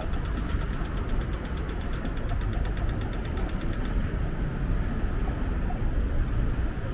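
Strong wind buffeting the microphone over city street traffic. A rapid, even high ticking, about eight to ten ticks a second, runs through the first four seconds and then stops.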